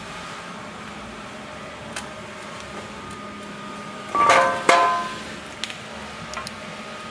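Two sharp metallic clanks close together, about four seconds in, each leaving a short ring, with a few light clicks around them over a steady shop hum. The clanks come from metal parts being knocked while the intercooler is fitted to its lower mounting bracket.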